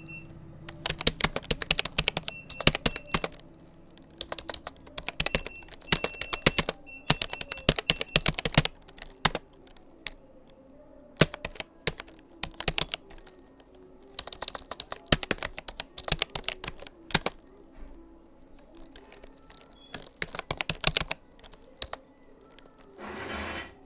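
Rapoo computer keyboard being typed on: rapid clusters of key clicks with short pauses between words. Near the end there is a brief rushing noise.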